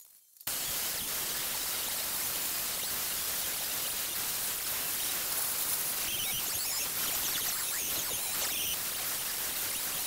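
DeWalt angle grinder with an abrasive disc grinding weld beads flush on a steel patch panel: a steady, hissing grind that cuts in after a half-second gap at the very start.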